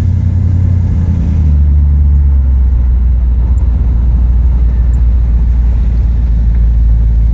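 1963 Chevrolet Impala running, with a loud, steady low engine and road drone whose low note shifts about a second and a half in.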